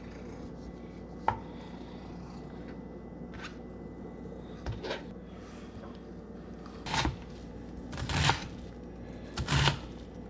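Chef's knife cutting on a plastic cutting board, dicing mango and then red onion: a few scattered light knife taps at first, then three louder knife strokes and scrapes about a second apart near the end.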